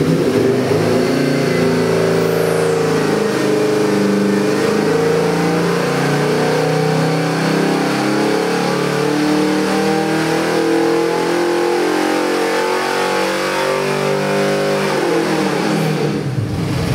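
Ford 427 cubic-inch stroker V8, built on a 351 Windsor block, pulling under full load on an engine dynamometer, its revs climbing steadily through the pull. About fifteen seconds in, the revs fall away sharply.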